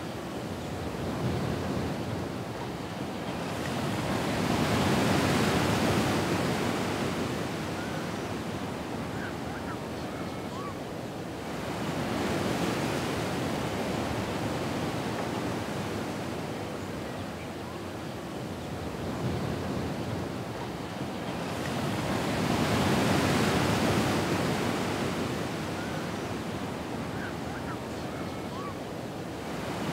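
Recorded ocean surf: waves breaking and washing back in slow, even surges, swelling and fading about every seven to ten seconds.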